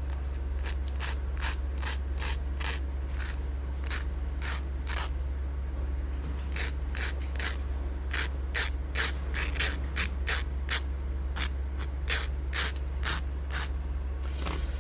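Metal file rasping in short back-and-forth strokes on a balisong pivot screw, filing down the sharp edges of the freshly cut slot. The strokes come at about two a second with a short pause about five seconds in, over a steady low hum.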